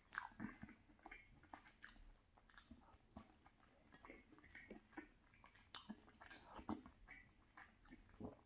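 Faint close-up chewing and lip smacks from a mouthful of chicken and sausage gumbo, with a plastic spoon stirring and scraping in a glass bowl, heard as a scatter of small clicks.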